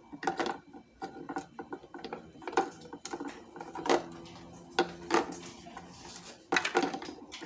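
Irregular clicks, knocks and light clatter of small hard parts being handled.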